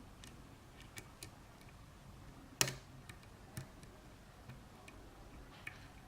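Faint, irregular clicks of a lock pick working the pins of a custom 7-pin Sargent lock cylinder under tension, with one louder click about two and a half seconds in.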